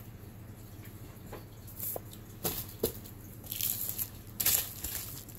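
Packaging rustling and crinkling as items are handled, in several short bursts from about two seconds in.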